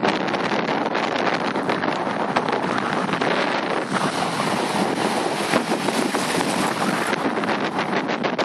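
Steady wind noise buffeting the microphone, over the wash of shallow surf around the boots.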